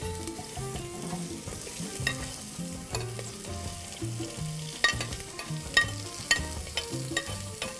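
Diced onion, carrot and celery sizzling in hot oil in an aluminium pressure cooker, with a few sharp clicks of a utensil on the metal as they are tipped in and stirred. The sizzle shows the pan is hot enough for the vegetables to start caramelizing.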